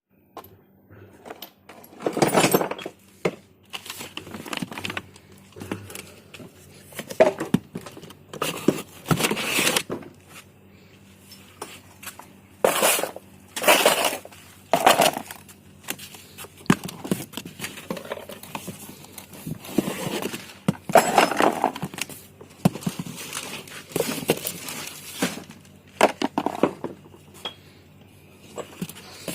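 Irregular clinks and clatter of hard metal and plastic parts and tools being handled and set down, in bursts with short pauses.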